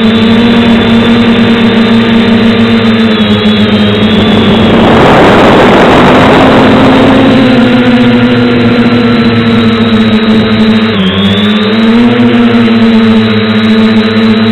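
Quadcopter drone's electric motors and propellers whining steadily at one pitch, heard from the onboard camera. A rush of noise covers it for a couple of seconds about five seconds in, and the pitch dips briefly and climbs back about eleven seconds in.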